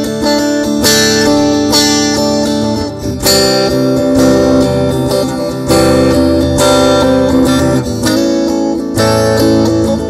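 Guitar played through a Mooer GE200 multi-effects processor, strumming clean chords with an acoustic-guitar-like tone.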